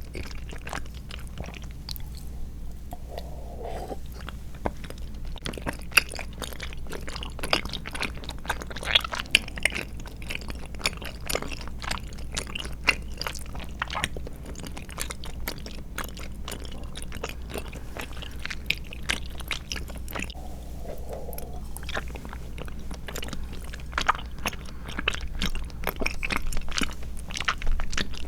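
Close-miked chewing of soft, chewy tapioca pearls and milk jelly: a dense, irregular run of wet clicks and squishes from the mouth, with no talking.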